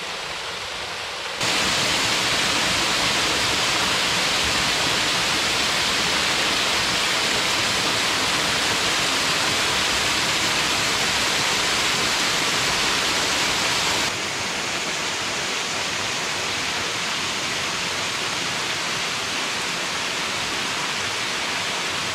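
Small waterfall pouring over a rock ledge into a plunge pool: a steady rush of falling water. It gets louder about a second in and a little softer about two-thirds of the way through.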